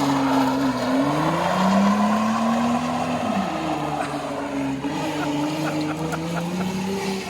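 2001 Toyota Tacoma pickup's engine revving hard during a burnout, its pitch climbing and then falling back sharply about a second in and again about three seconds in.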